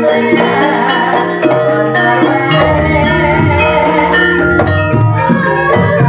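Live Javanese ebeg accompaniment music: a gamelan-style ensemble of pitched instruments over a steady pattern of hand-drum strokes.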